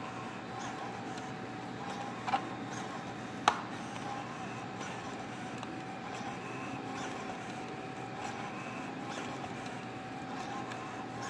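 Hitec HS-5245MG servos driving a morphing wing trailing edge, a steady high buzz with a faint mechanical grind. Two sharp clicks come about two and three and a half seconds in.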